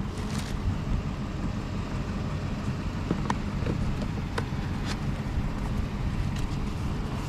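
Truck driving, heard from inside the cab: a steady engine and road rumble with a few light clicks and rattles.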